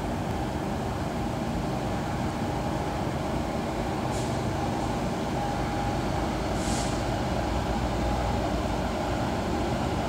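Distant GE diesel locomotives of an approaching freight train working under load: a steady low rumble that grows slowly louder. Two short hisses come about four and seven seconds in.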